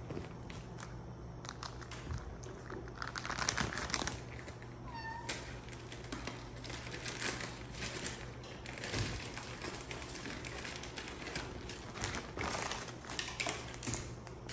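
A cat gives one short meow about five seconds in, amid scattered light taps and scuffles of the animals moving on the tiled floor.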